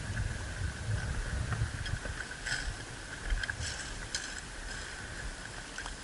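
Low wind rumble and handling noise on an outdoor microphone, with a few faint sharp clicks in the middle.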